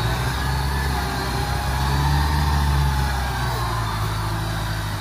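Engine of a small tracked rice-hauling carrier running steadily under load, carrying a full stack of rice sacks. It grows slightly louder in the middle.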